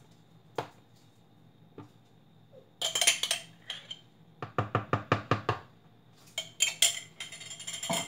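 A spoon scraping and tapping in a plastic container: a few single clicks, scraping about three seconds in and again near the end, and a quick run of about eight sharp taps in the middle.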